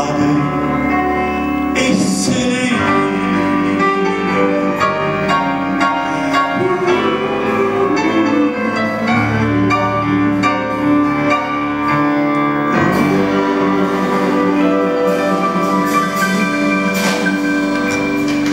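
A live band plays the closing instrumental bars of a song, with grand piano, electric guitar, bass guitar and drums.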